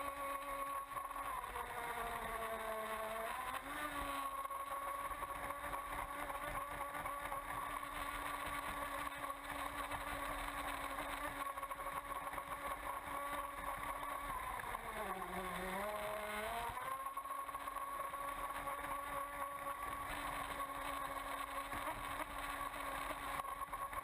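Motor of a Miss Geico RC racing catamaran running at full speed with a steady high-pitched tone over the hiss of spray and wake. The pitch dips twice, about two seconds in and again around fifteen seconds, and picks back up each time.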